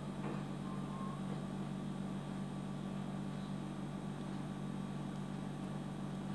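A steady low hum with a faint hiss underneath, unchanging throughout and with no distinct events.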